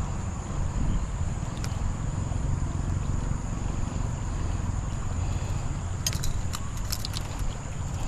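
Open-air riverbank ambience: a steady low rumble under a thin, steady high whine. A short cluster of sharp clicks comes about six to seven seconds in, as the fishing rod and reel are handled for a cast.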